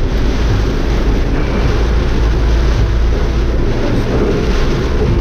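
Steady noise inside a car driving through heavy rain: rain on the windscreen and tyres on a waterlogged road over a low rumble of the car.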